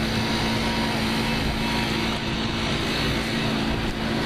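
A steady engine drone with a constant low hum, unchanging throughout.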